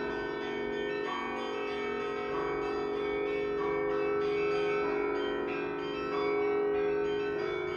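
Church bells ringing: several bells struck one after another, a new strike about every second, their tones overlapping and ringing on.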